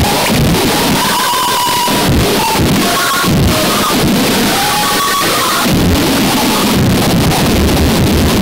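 Harsh noise music: a loud, unbroken wall of distorted, churning noise with no beat or melody, with short wavering whine tones surfacing through it now and then.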